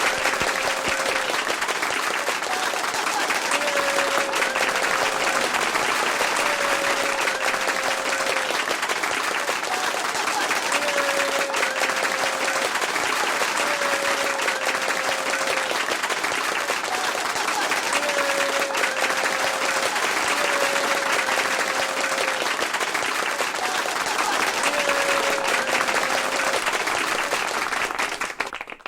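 Light, polite applause from a small audience: many hands clapping in a steady dense patter, thinning to a few separate claps at the very end.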